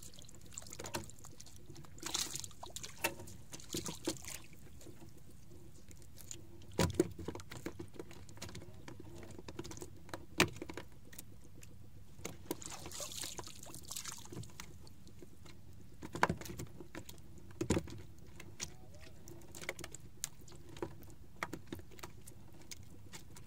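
Scattered light clicks and knocks of a fisherman's hands working a handline and hooks on a small outrigger boat, over a low wash of water against the hull. A few sharper knocks stand out among the clicks.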